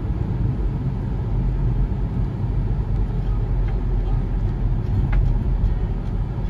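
Steady road and engine noise inside a moving car's cabin: a low rumble.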